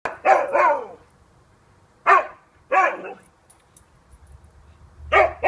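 Siberian husky barking in short, sharp barks: a quick pair at the start, two single barks a little after two and near three seconds, and another near the end.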